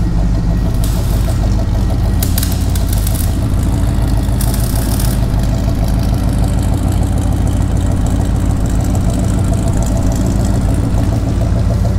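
Pontiac 350 V8 idling steadily on a fresh set of spark plugs, running evenly with no misfire.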